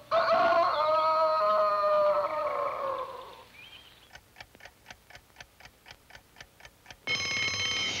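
A cartoon wind-up alarm clock ticking, about five ticks a second. About seven seconds in its bell breaks into a loud ring, which is cut short.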